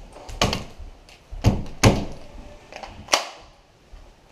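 A few sharp knocks and heavy thuds, about four in all, the loudest pair about a second and a half in, in a small room.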